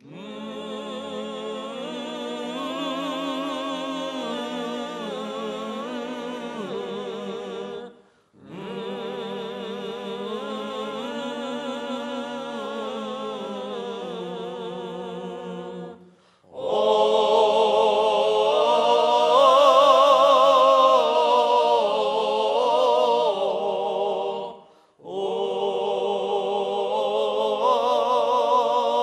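Male vocal ensemble singing a Chechen illi, a heroic folk song, unaccompanied and in harmony. The voices sing long phrases with vibrato, breaking for breath about every eight seconds; the third phrase, about halfway through, is the loudest.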